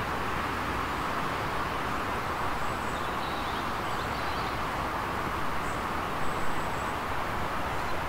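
Outdoor ambience: a steady, even rushing noise, with a few faint, high, thin bird calls around the middle.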